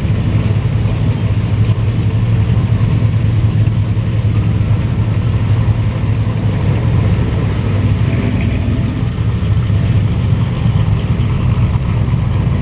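A car engine running at a steady idle, a low even rumble that does not change.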